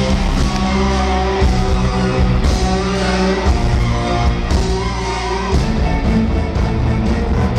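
Live amplified rock music from a stage band backed by an orchestra, with a heavy bass, recorded from the audience.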